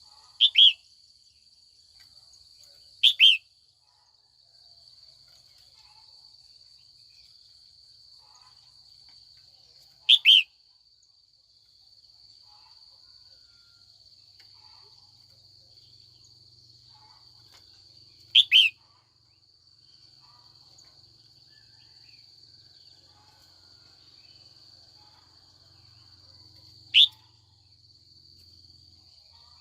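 Female red-whiskered bulbul giving short, sharp, falling calls, five times several seconds apart, most of them doubled. A steady high insect trill runs underneath.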